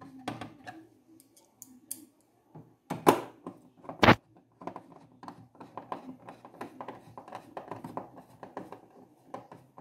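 Hand screwdriver driving screws into a TV's plastic back cover: small rapid clicks and scraping as the screws turn, with two sharp knocks about three and four seconds in.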